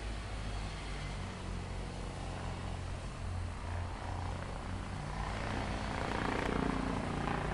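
Steady low mechanical drone, like a heavy engine running, growing a little louder and fuller about six seconds in.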